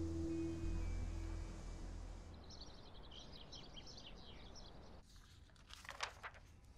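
Outdoor ambience with a low steady rumble, then small birds chirping in quick high notes for a couple of seconds. Near the end it cuts to a quieter room with a brief rustle.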